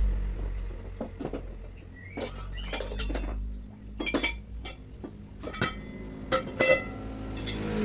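Metal tools clinking and tapping as a mechanic works on a motorcycle: a string of separate sharp strikes, each with a brief ringing, at irregular intervals.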